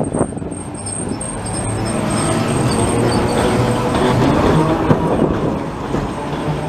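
Vintage FVV CSM-1 articulated tram running slowly past at close range: its wheels rumble on the rails over a steady low hum, getting louder as it draws level. There is a sharp knock about five seconds in.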